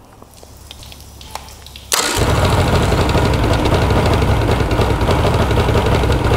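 Evinrude 150 two-stroke outboard firing up suddenly about two seconds in and then running loud and steady, its first start after about five years laid up.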